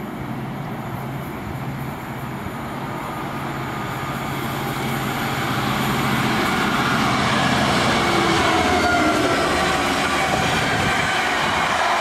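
Class 66 diesel locomotive's two-stroke V12 engine running as it hauls a container train past, growing louder over the first half and peaking as it passes. It is followed by the steady rolling noise of the container wagons going by.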